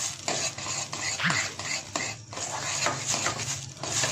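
A spoon stirring and scraping quickly around a steel pot in repeated strokes, while the egg halwa mixture sizzles in ghee. It is kept moving constantly as it cooks.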